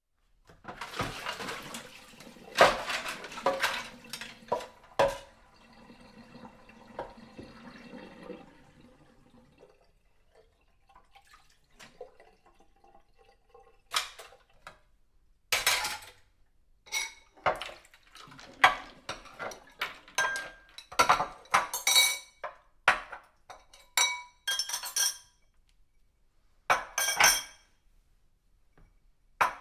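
Dishes being washed by hand: plates, glasses and cutlery clattering and clinking against each other, with water running and splashing through the first ten seconds or so, then a string of sharp separate clinks.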